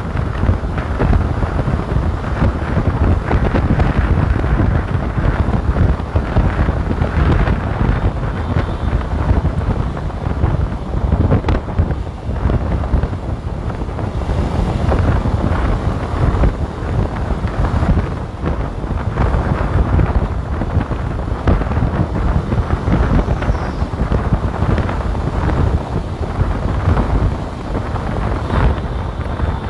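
Wind buffeting the microphone of a fast-moving vehicle, mixed with its road and engine noise, fluttering unevenly in loudness.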